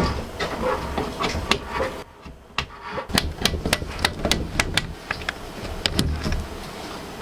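Sharp clicks and light knocks of hard computer parts being handled and fitted together. They come irregularly and are quickest around the middle, over a low hum.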